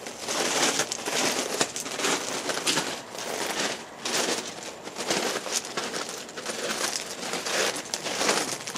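Footsteps crunching on gravel track ballast, a run of irregular crunches.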